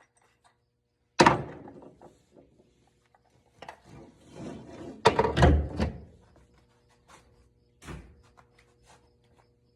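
Three loud thuds, about a second in, at five seconds and near eight seconds, with scraping and handling noises between them, as something solid is knocked or set down; a faint steady hum comes in about six and a half seconds in.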